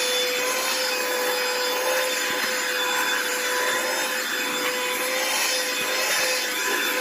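Hikeren cordless vacuum in handheld mode running steadily: a constant motor whine over rushing air, with the nozzle rubbing over couch fabric.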